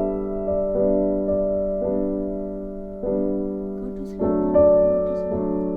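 Background piano music: gentle chords struck one after another, each left to ring and fade.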